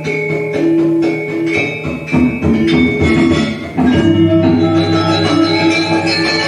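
Balinese gamelan music accompanying the Topeng dance: bronze metallophones struck in a flowing pattern of ringing tones, growing louder and fuller about two seconds in, with deep low tones joining about four seconds in.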